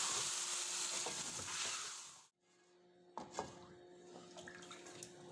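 Chicken sizzling in an aluminium cooking pot as it is stirred with a wooden spoon; the sizzle cuts off suddenly about two seconds in. A couple of light knocks of the wooden spoon against the pot follow, then faint stirring.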